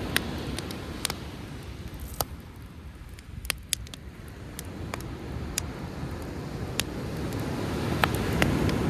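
Driftwood campfire crackling, with sharp scattered pops, over the wash of sea waves that ebbs in the middle and swells again near the end.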